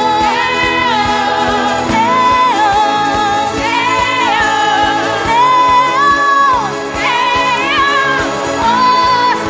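Church worship band playing the intro of a Christmas song: a lead melody of held notes that slide from one to the next, over steady chords.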